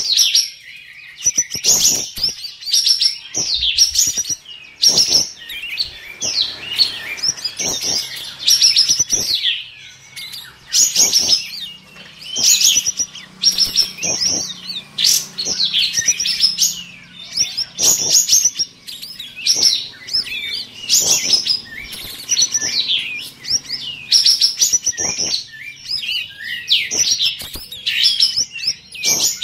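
Kapas tembak bulbuls, caged contest songbirds, singing. The song is loud, rapid chirping and whistled phrases of quick up-and-down notes, repeated in bursts of about a second with short pauses between them.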